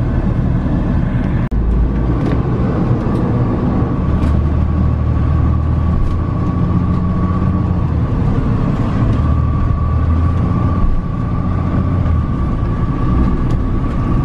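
Road and engine noise heard inside a truck's cab while it drives slowly onto a bridge: a steady low rumble with a faint steady whine above it. The sound briefly drops out about a second and a half in.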